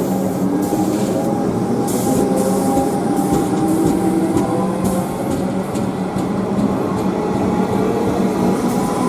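Train running close by: a steady, loud rumble with several held pitched tones and scattered sharp clicks.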